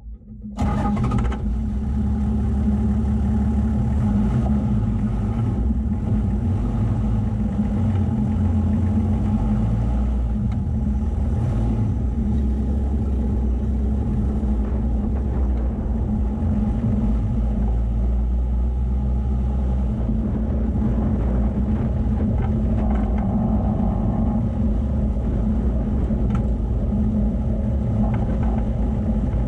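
A vehicle driving along a sandy dirt track, its engine running steadily with a low drone, starting about half a second in.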